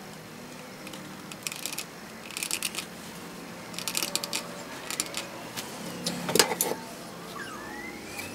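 Small metal clicks and rattles as brass clock hands are fitted and pressed onto a clock movement's spindle and the metal numeral ring is handled, with a louder clatter about six seconds in. A faint siren starts to wail near the end.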